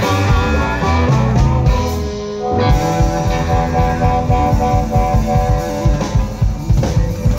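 Live electric blues band playing: electric guitars over bass and drums, with sustained guitar notes through the middle.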